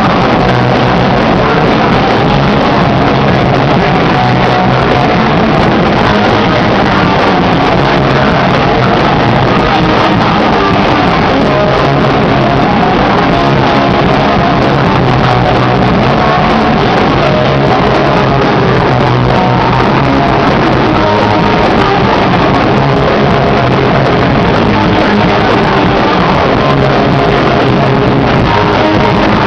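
A rock band playing live at a steady, very loud level, with electric guitar prominent and no break in the music.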